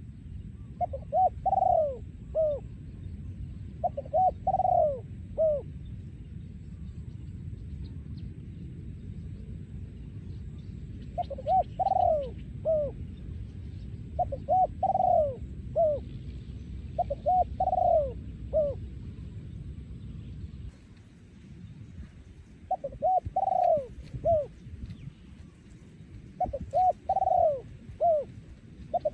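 Spotted dove cooing: about seven phrases of several soft, hooting notes each, repeated every few seconds, a breeding male giving its territorial song. A low background rumble underneath falls away about two-thirds of the way through.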